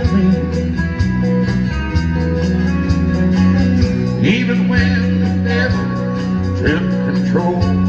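Live country band playing: electric and acoustic guitars, bass guitar and drums with a steady beat.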